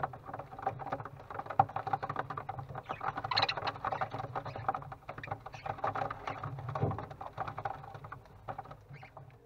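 Busy scratching, rustling and clicking of budgie chicks moving about on the floor of a wooden nest box, many small scrapes in quick succession over a steady low hum.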